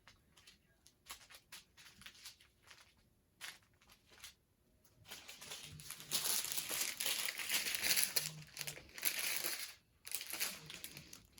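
Small plastic packets of diamond painting drills being handled and crinkled. Scattered light rustles and clicks at first, then steady, louder crinkling from about five seconds in, with a short pause near the end.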